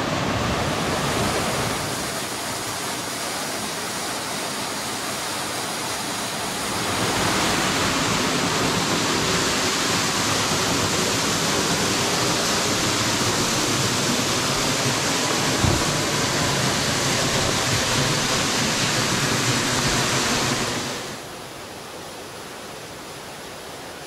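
Waterfall rushing steadily. It grows louder about seven seconds in and drops back to a quieter rush near the end, with one brief low bump about two-thirds of the way through.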